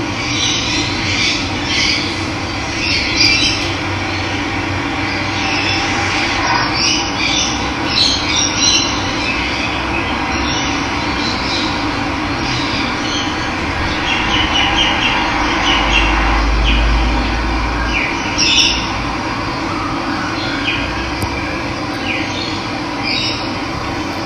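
Steady rush of running water with many wild birds chirping over it, and a brief low rumble for a couple of seconds past the middle.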